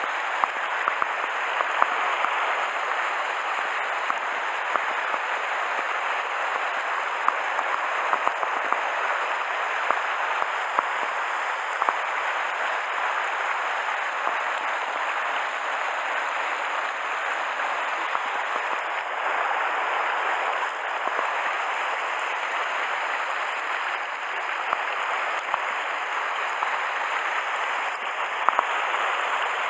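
Mountain stream rushing steadily over rocks, with occasional small clicks.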